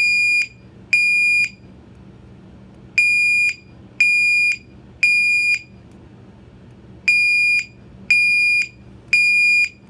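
Gentex GOS-24-15/75WR horn strobe sounding its 2400 Hz temporal tone on high volume: very high-pitched half-second beeps in groups of three, with a pause of about one and a half seconds between groups. This three-pulse temporal pattern is the standard fire evacuation signal.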